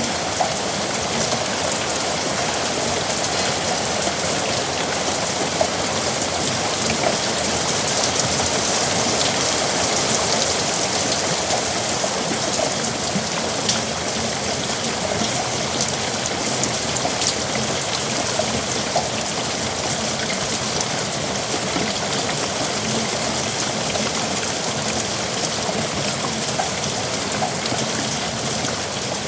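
Heavy rain falling steadily, a dense hiss of drops pattering on surfaces, swelling a little about ten seconds in.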